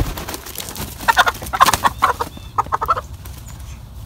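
Chickens squawking in a quick run of short, harsh calls between about one and three seconds in, as a rooster mounts a hen to mate.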